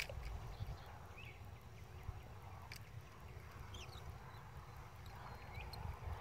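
Quiet outdoor ambience: wind rumbling on the microphone, with a few faint, short bird chirps and a single click at the start.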